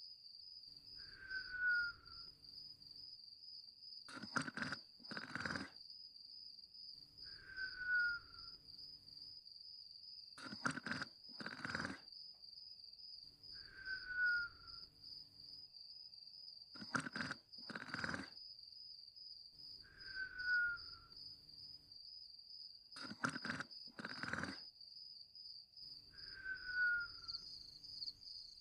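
A sleeper snoring in a slow cycle about every six seconds: two noisy breaths, then a low snore with a short falling whistle on top, five times over. A steady high cricket chirping runs underneath.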